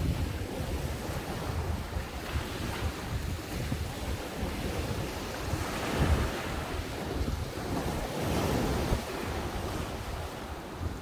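Ocean waves breaking on a sandy beach shore, a continuous wash of surf that swells about six seconds in and again near the end, with wind rumbling on the microphone.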